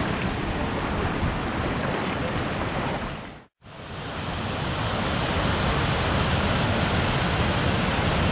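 Steady rush of a shallow river running over rocks, with a low rumble of wind on the microphone. About three and a half seconds in the sound cuts out abruptly, then the rush of white-water rapids over boulders fades back in and runs steadily.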